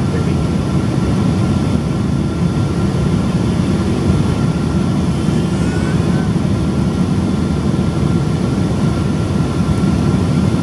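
Steady cabin noise of a Boeing 777-200 in flight, heard from a window seat over the wing: the low, even roar of its GE90 turbofan engines and the air rushing past the fuselage, with a faint steady high whine on top.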